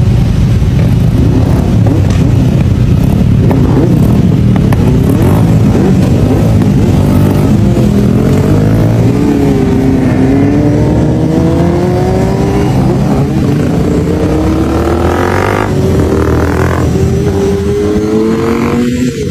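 Several sport motorcycle engines running and revving together, then pulling away. In the second half one engine note rises steadily as the bike accelerates.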